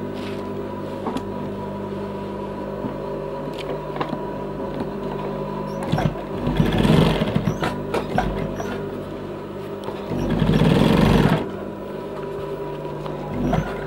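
Sewing machine with its motor humming steadily, breaking into two short stitching runs of rapid needle strokes, about six and ten seconds in, as a pocket piece is sewn in place.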